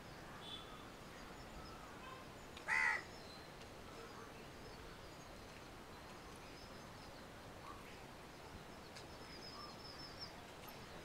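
A single short, harsh bird caw about three seconds in, loud over a steady low hiss of room noise. Faint high chirps sound near the end.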